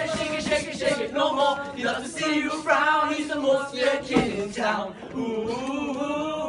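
A group of voices singing together, sustained sung notes that bend in pitch, with no speech.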